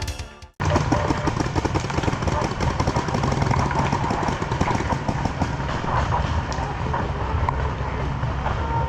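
Paintball markers firing all around: a dense, irregular crackle of many shots over a steady low rumble. Intro music cuts off about half a second in.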